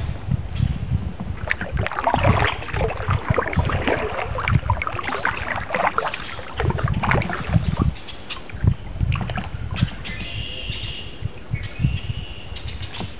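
Kayak paddle dipping and splashing in the water in irregular strokes, over low thumps on the microphone.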